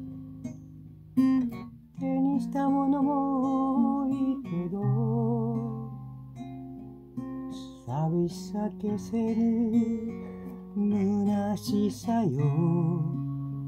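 Acoustic guitar being strummed and picked through a chord progression, its chords ringing on between strokes, with a voice singing a melody with vibrato over it in several phrases.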